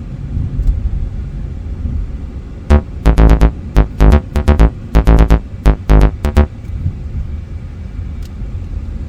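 Background music: a run of short, bright synthesizer notes from about three to six and a half seconds in, over a steady low rumble of the car driving.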